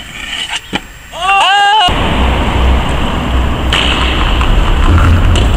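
Two sharp knocks of a stunt scooter landing on concrete, then a short high yell. About two seconds in, a loud, steady rumbling noise takes over, with a few more knocks in it.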